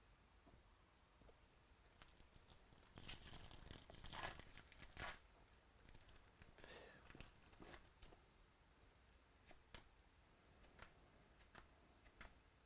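A foil trading card pack being torn open, loudest about three to five seconds in, followed by faint rustling and small clicks as the cards are handled.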